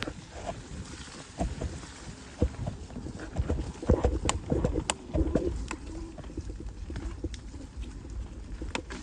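Mountain bike clattering over rough trail: irregular knocks and rattles from the tyres and frame, loudest in the middle, over a steady low rumble of wind on the microphone.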